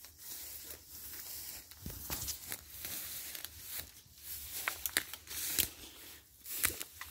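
Footsteps through tall dry grass, weeds and fallen leaves: irregular crunching and rustling as the stems brush and snap.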